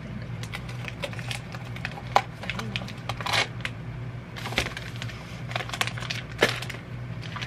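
Small plastic blind-bag wrappers and a little cardboard box being handled and opened, an uneven run of crinkles, crackles and small clicks, with a steady low hum underneath.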